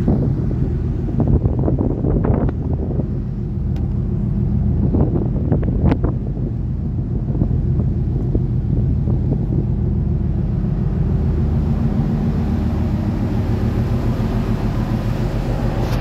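Steady low rumble of a cargo ship's diesel engine and exhaust under way at sea, with wind buffeting the microphone. A few knocks in the first six seconds, footsteps on the steel deck.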